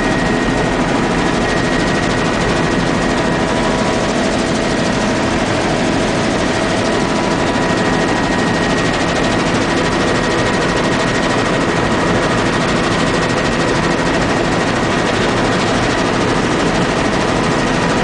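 Helicopter in steady forward flight, heard from the front seat with the door off: a loud, even rush of wind and rotor and engine noise, with a steady high whine running through it.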